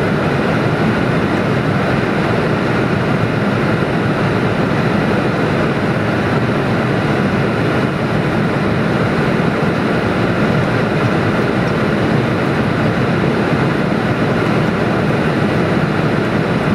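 Steady rushing noise on the flight deck of a Boeing 747-400 in flight on approach, even and unbroken throughout.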